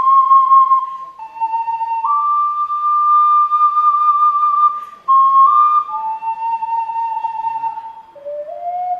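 Alto C ocarina playing a slow melody in long held notes that step up and down in pitch, with short breaks between phrases about one, five and eight seconds in. It is recorded on a phone's built-in microphone.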